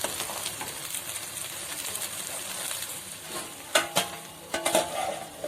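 Ground chilli paste frying in oil in a pan, a steady sizzle that eases off after about three seconds. A few sharp metal clinks about two-thirds through, as a lid is set on the pan.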